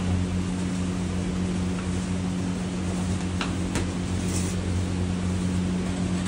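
Steady machine hum, a constant low drone that holds one pitch, with a couple of faint light clicks about three and a half seconds in.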